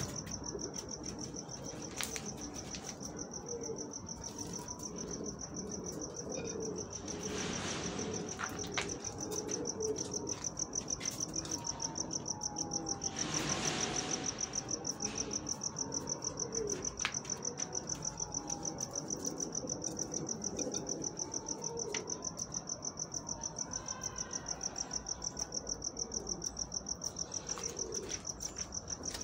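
Steady high-pitched insect chirping, pulsing several times a second, like a cricket, over low cooing of domestic pigeons. Two brief rustles come about 8 and 13 seconds in.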